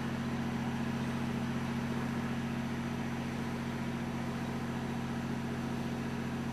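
A steady low mechanical hum, like a motor running at a constant speed, with no other events.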